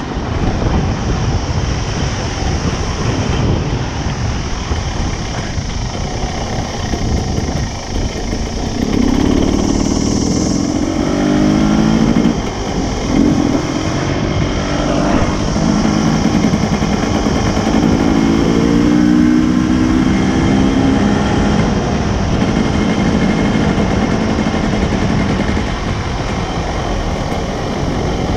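Dirt bike engine running as the bike is ridden along a dirt track, its pitch rising as it accelerates about a third of the way in and again past halfway.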